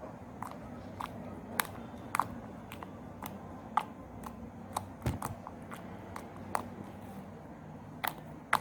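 Homemade slime being squeezed and stretched in the hands, giving off irregular sharp clicks and pops, about two a second.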